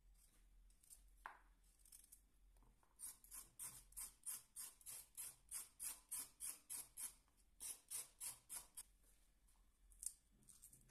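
Kitchen knife blade scraping the skin off a raw carrot in quick, even strokes, about four a second, in two runs. Near the end comes a single sharp snap as a fresh pea pod is split open.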